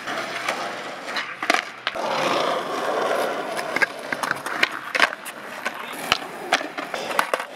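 Skateboards doing flatground flip-trick attempts on pavement: repeated sharp pops and clacks of tails snapping and boards slapping down, with wheels rolling in between, heard mainly about two to four seconds in.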